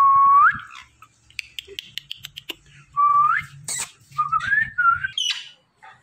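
Indian ringneck parakeet whistling: a held note that bends upward at its end, repeated about three seconds in, then a wavering whistle and a short harsh rising call near the end. A run of quick clicks falls between the first two whistles.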